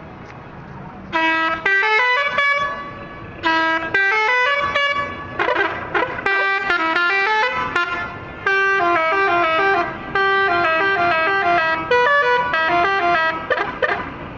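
Telolet multi-tone air horns on tour buses play short tunes one after another. The notes step up and down in pitch, and some phrases overlap. The horns start about a second in, after a quieter background.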